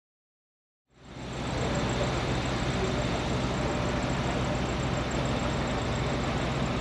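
Old Willys flat-fender Jeep engine running steadily; it fades in out of dead silence about a second in.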